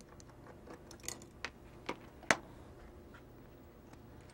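A few light clicks and small knocks of metal, about a second apart with the sharpest a little past two seconds in, as a screwdriver backs out a truck mounting screw on a model train tender's metal frame and the small parts are handled.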